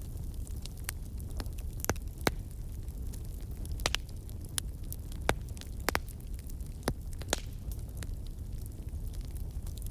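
Campfire burning: a steady low rumble of flames with irregular sharp crackles and pops from the burning wood, about a dozen scattered through.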